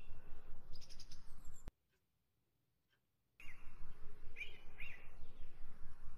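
Mutton masala sizzling and crackling steadily in a large aluminium pot, with birds chirping in short repeated calls in the background. The sound drops out completely for about a second and a half a couple of seconds in, then resumes.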